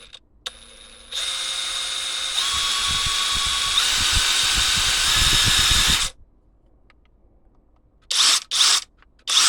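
Seesii brushless cordless impact wrench spinning free with no load: a faint slow whine under a light trigger, then about a second in it runs loud for about five seconds, its whine stepping up in pitch three times as the trigger is squeezed further, and stops suddenly. Two short bursts of sound follow near the end.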